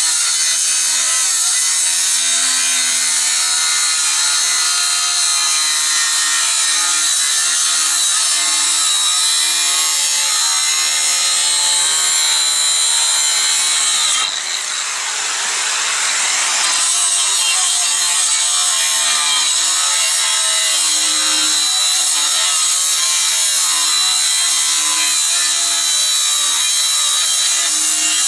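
Angle grinder cutting through 6 mm steel plate: a loud, steady, high-pitched grinding with a whine. About halfway through, the high grinding eases for two or three seconds, then returns.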